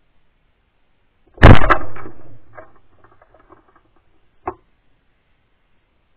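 A single 12-bore shotgun shot, very loud and sharp, about a second and a half in, its rumble and echo fading over the next second and a half. A short, much quieter knock follows about three seconds later.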